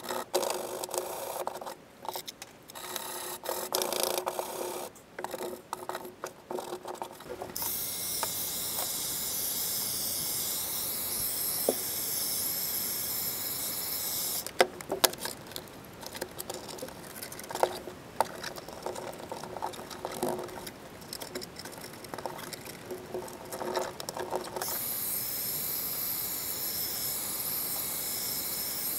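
Hand scrubbing on the bare steel floor pan. Then a heat gun's blower runs with a steady hiss for several seconds, used to warm the Dynamat sound deadener. Rubbing and tapping follow as the mat is worked down, and the heat gun runs again near the end.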